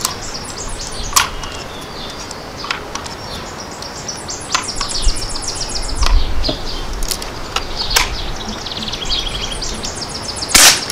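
Songbirds trilling in bursts, with wind rumbling on the microphone and a few faint clicks. Near the end comes one sharp, loud crack: the Umarex NXG multi-pump air rifle firing a BB.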